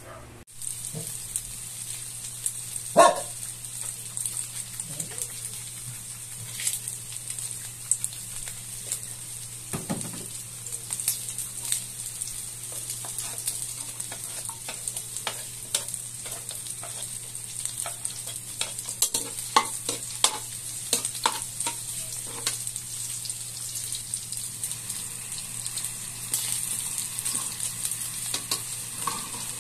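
Chicken pieces and minced garlic sizzling in hot oil in a metal wok, a steady hiss with many short scrapes and clicks from a metal spatula against the pan. One louder sharp sound about three seconds in.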